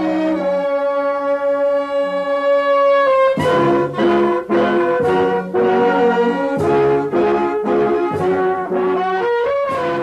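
Brass band music: held chords at first, then from about three seconds in a run of short separate notes in a steady rhythm.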